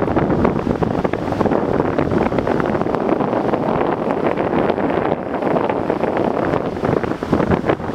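Rushing floodwater of a swollen river, overlaid by wind buffeting the microphone in constant crackling gusts.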